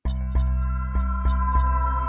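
Ambient electronic intro music starting abruptly: a deep bass pulse about three times a second under sustained ringing, bell-like tones.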